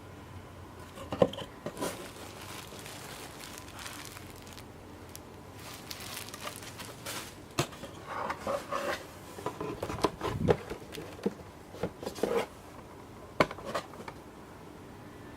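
A cardboard box and its packaging being handled and opened by hand: irregular crinkling and rustling with sharp clicks and knocks, the busiest stretch in the second half.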